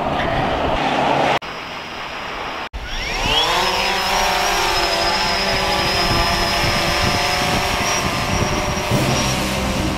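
Quadcopter drone (DJI Phantom 3 Special Edition) taking off: about three seconds in, its four motors spin up with a rising whine, then settle into a steady, many-toned propeller buzz as it hovers. Before that there is a short stretch of rushing noise, broken off abruptly twice.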